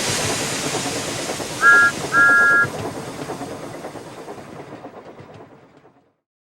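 Steam locomotive sound effect: a sudden hiss of steam over rolling wheel clatter, with two short toots on a two-note whistle about a second and a half in, the second one longer. The hiss and clatter then fade away.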